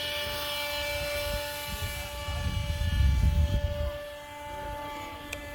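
Small electric R/C plane's motor and propeller whining at a steady pitch, growing fainter as the plane flies away, with wind rumbling on the microphone in gusts about halfway through.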